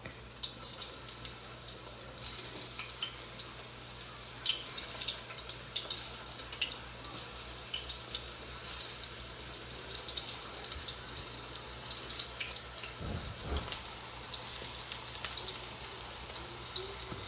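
Eggplant pieces frying in hot oil in a pan: a steady sizzle with irregular crackling pops. A brief low thump comes about two thirds of the way through.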